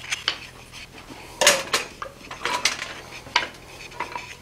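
Light, irregular clinks of steel on steel: blacksmith's tongs, hot bar and hammer knocking against each other and the anvil as the work is set up, with no forging blows. About eight taps, the strongest about a second and a half in, several with a short metallic ring.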